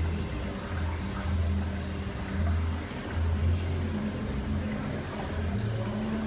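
Water circulating in a saltwater aquarium, a steady watery hiss over a low hum that comes and goes.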